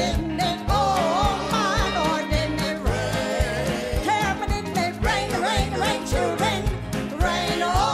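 Southern gospel vocal group singing an up-tempo number over a band, with drums keeping a steady beat.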